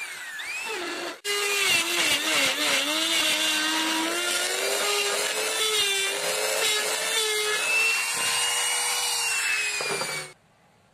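Handheld electric trim router running and cutting a mortise into a wooden board, its motor pitch dipping and recovering as the bit bites into the wood. The sound breaks off for an instant about a second in and stops abruptly near the end.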